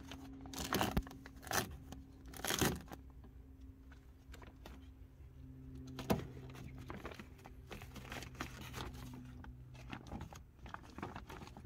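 Plastic moisture-barrier foil being peeled off a car door's inner panel: intermittent crinkling and rustling, with a few sharper crackles in the first three seconds and once more about six seconds in.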